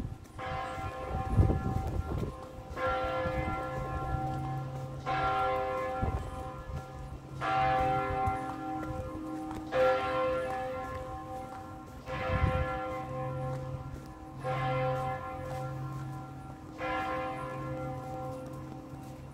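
A single bell tolling at a slow, steady pace, about eight strokes each some two and a third seconds apart, every stroke ringing on and fading before the next. A low thump comes about twelve seconds in.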